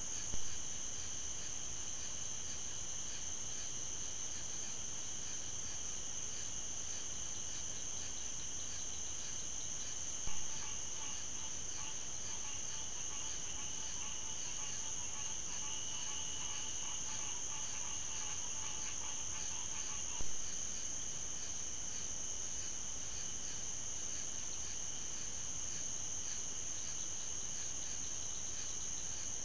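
Night insect chorus: a steady high shrill with a fast pulsing trill over it. From about ten seconds in to about twenty, a second, lower pulsed chirping caller joins. A short pop sounds three times, about ten seconds apart.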